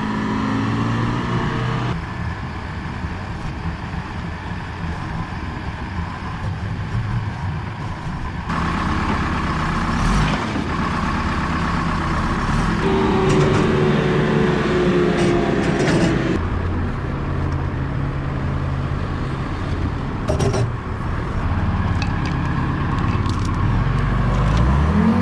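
Loader engine running close by, its speed rising and falling as it works, with a few metallic clanks.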